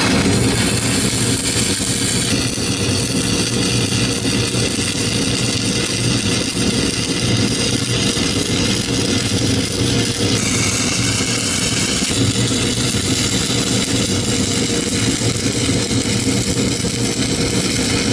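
Stick-welding arc of a 7024 electrode burning on thick steel plate, a steady crackling hiss as a stringer bead is laid into the toe of a beveled groove weld. A steady low hum runs underneath.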